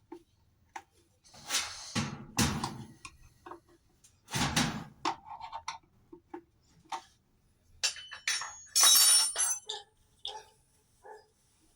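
Hard metal and plastic parts and tools being handled during a washing machine repair. There are a few dull knocks in the first half, scattered light clinks, and a short metallic clatter near the end.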